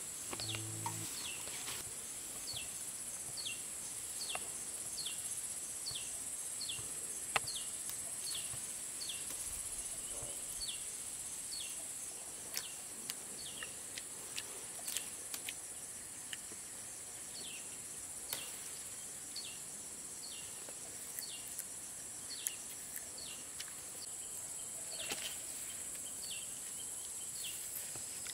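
Rural outdoor ambience: a steady high insect drone, with a bird repeating a short falling chirp more than once a second almost throughout. A few faint clicks and taps are scattered through it.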